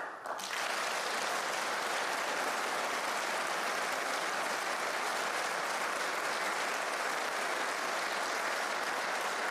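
Large seated audience applauding, a dense, even clapping that starts suddenly and holds at a steady level.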